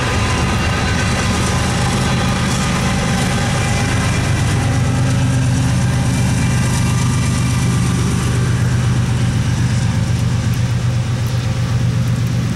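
Rear distributed-power diesel locomotives of an empty coal train, a GE ES40DC and an EMD SD70M, running as they pass, with a steady low engine drone.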